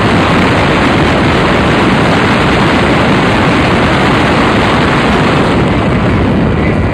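Loud, steady rush of wind and road noise from a car travelling at speed.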